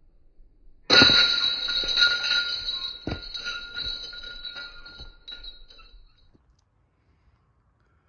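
Metal disc golf basket struck by a disc and ringing like a bell: a sudden clang about a second in that fades away over about five seconds, with a second knock about two seconds after the first.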